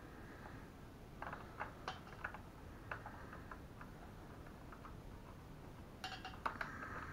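Faint small clicks and rustling of electrical wires and small plastic parts being handled at an LED ceiling lamp's terminal block, in two spells, about a second in and again near the end.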